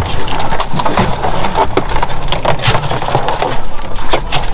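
Hard shells of Dungeness crabs clattering and knocking as they are picked up off the deck and dropped into a plastic bin: many sharp clicks and knocks. A steady low rumble runs under them.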